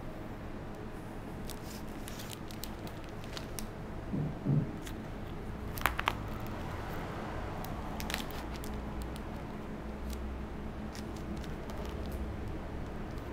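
Scattered light clicks and crackles over a steady low hum, with a dull knock about four seconds in and two sharper, louder clicks about two seconds later.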